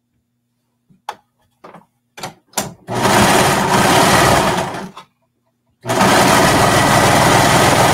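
Sewing machine stitching a short side seam in knit fabric in two runs about a second apart, the second longer, after a few light clicks of handling.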